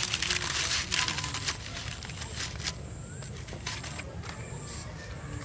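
Metal spatula scraping and lifting banana-leaf fish parcels on a hot pan, with dense crackling clicks from the charred leaf in the first second or so, then sparser clicks.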